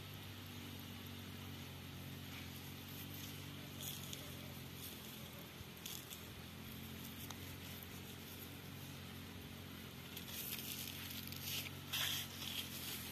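Faint rustling of vine leaves being handled, with a few louder rustles near the end, over a steady low hum.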